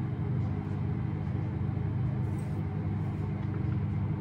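A steady low mechanical hum, even and unchanging.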